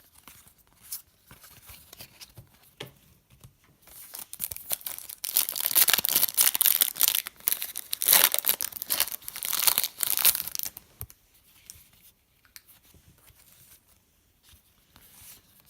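Trading-card pack wrapper being torn open and crinkled, a dense rustling stretch lasting several seconds from about four seconds in, with light ticks of cards being handled before and after.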